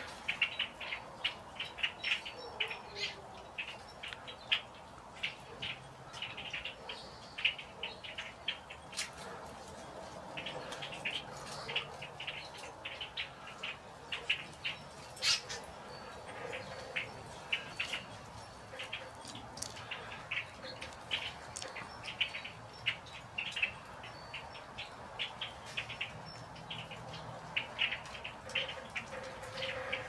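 A flock of red-winged blackbirds calling: many short, sharp calls overlapping, several a second, with a few louder ones standing out.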